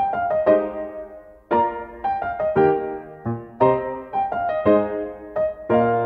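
Background piano music: a slow melody of struck notes that ring and fade, in short phrases.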